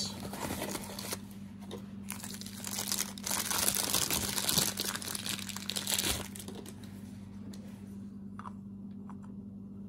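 Plastic bag and cardboard box packaging crinkling and rustling as a new chainsaw spur sprocket is unwrapped, loudest from about three to six seconds in, then a few faint clicks.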